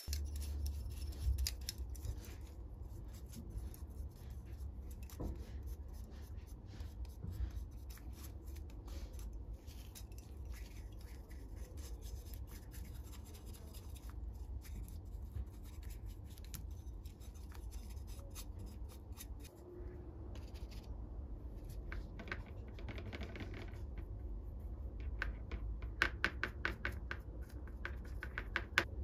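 A stiff brush scrubbing the metal burner and wire bail of an old oil lantern: a continuous run of quick scratching strokes, heavier near the end, over a low steady hum.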